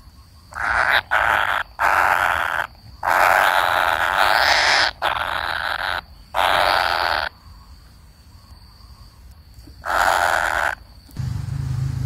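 A young kingfisher giving harsh, hissing begging calls for its parent: about eight calls, each half a second to two seconds long, in close succession, with a longer pause before the last two.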